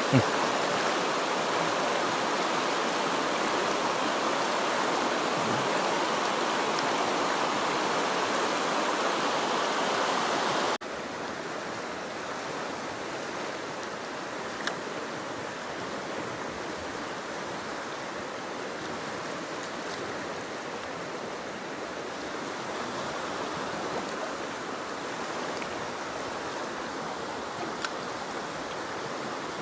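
Mountain stream water rushing steadily. About a third of the way in the level drops abruptly and the rush carries on more quietly.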